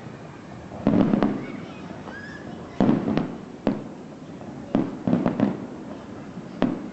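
Aerial fireworks shells bursting in quick clusters of sharp bangs with a deep boom: two about a second in, three around the third second, three more around the fifth, and another near the end.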